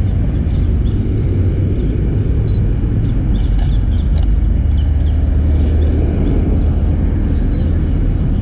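Outdoor street ambience: a steady low rumble with many short, high bird chirps scattered over it.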